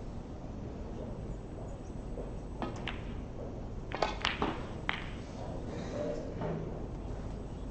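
Snooker break-off: the cue tip strikes the cue ball, then about a second later a louder cluster of sharp clicks as the cue ball hits the pack of reds, followed by a single click as the balls come off the cushions.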